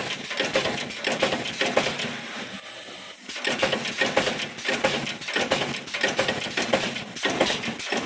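Mechanical punch press stamping holes in a steel strip at high speed: a rapid run of sharp metallic clanks, several a second, which eases off briefly about three seconds in and then picks up again.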